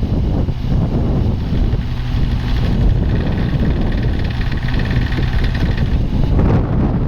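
Yanmar Vio25-3 mini excavator's diesel engine running steadily, with a higher whine joining in from about two and a half seconds in until about six seconds in.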